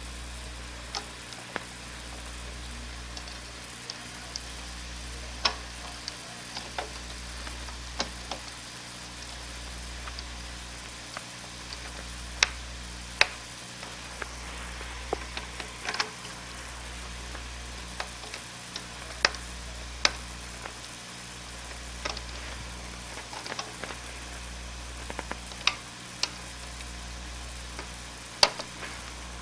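Steady hiss and low hum of an old film soundtrack, with scattered crackles and pops, about a dozen of them sharp and loud. The hum pulses about every two seconds.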